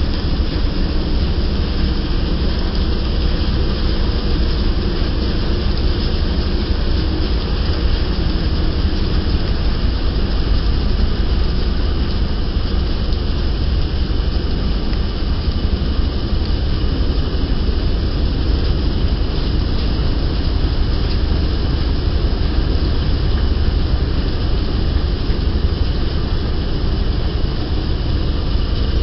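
Wheat thresher running steadily under load as it threshes wheat and blows out chaff: a loud, even mechanical noise with a strong low rumble that does not change.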